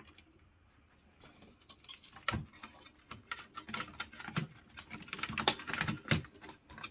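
Irregular clicks, taps and knocks of hands working small parts on a desktop PC case while fitting an external antenna. It is quiet for about a second, there is a heavier knock about two seconds in, and the clicking grows busier in the second half.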